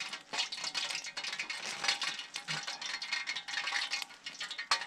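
Rapid, continuous crackling and popping from a small wood-fired stick stove burning dry spruce, with a pot of oil heating on top that is close to frying temperature.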